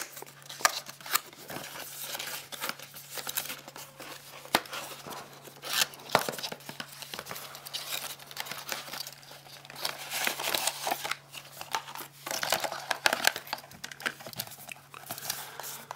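A cardboard retail box and its plastic insert being handled and opened by hand: irregular rustling and crinkling broken by many small clicks and taps.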